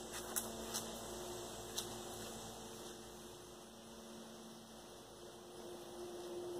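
Faint steady hum with a few faint short ticks in the first two seconds.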